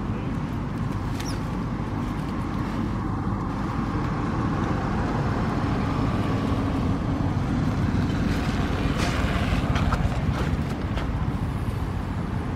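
Steady low rumbling background noise, slightly louder midway, with a few faint clicks.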